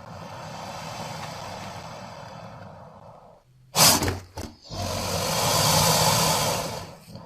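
Creature sound effect for a crocodile-human hybrid: long breathy hisses, with a short, loud burst just under four seconds in, two brief hisses after it, then a long hiss that swells and fades near the end.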